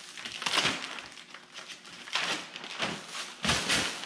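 Plastic wrap and foam packaging rustling and crinkling in irregular bursts as the wrapped pane of glass is handled and lifted out of its crate.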